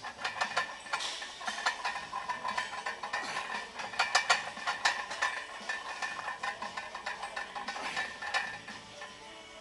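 Iron weight plates clinking and rattling on a loaded barbell during back squats with 315 lb, a dense run of small metallic clicks, loudest about four seconds in.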